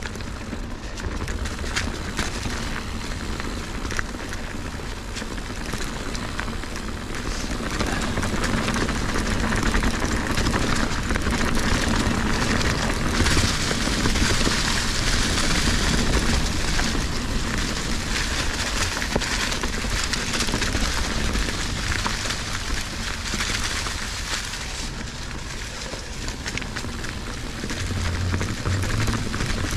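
Fezzari Cascade Peak mountain bike rolling along a dirt singletrack covered in dry leaves: a steady crackling of tyres over leaves and dirt. It grows louder about ten seconds in and eases off again a little after twenty seconds.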